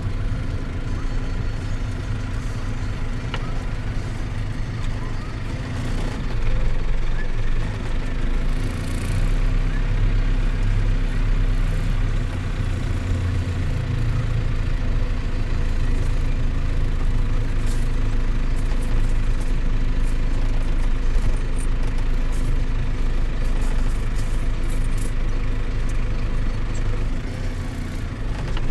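Engine and road noise heard inside a marshrutka minibus moving slowly in traffic: a steady low drone that grows a little louder about six seconds in.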